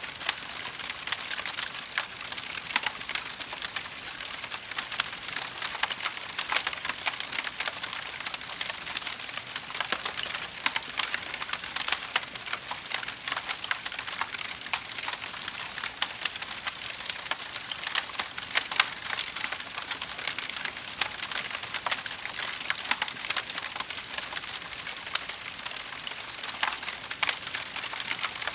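Fire crackling: a steady stream of small, irregular crackles and pops over a soft hiss.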